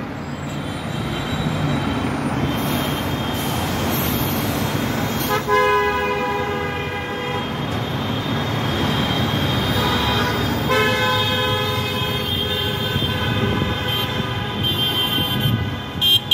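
Car horns honking in support of roadside protesters over steady traffic noise. There is one long honk about five seconds in and a longer one of several seconds from about eleven seconds in.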